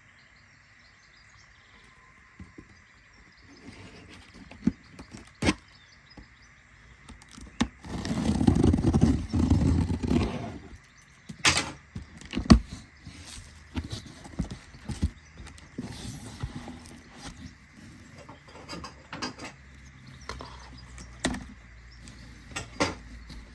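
Packaging being handled and opened: scattered sharp clicks and knocks, with a longer, louder scraping rush about eight seconds in.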